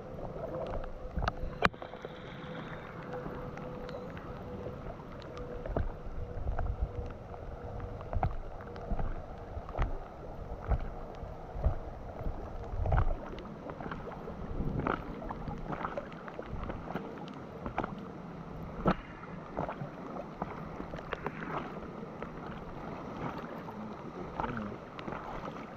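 Fast, high floodwater rushing and slapping around an inflatable Intex kayak, with irregular sharp taps and splashes against the hull and the bow-mounted camera.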